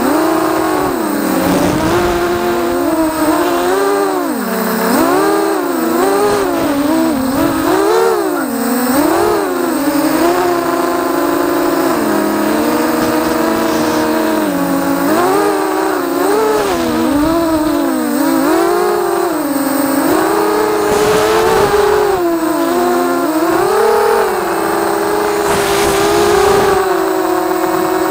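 FPV drone's electric motors and propellers whining, the pitch swooping up and down about once a second as the throttle changes, heard close-up from the onboard camera.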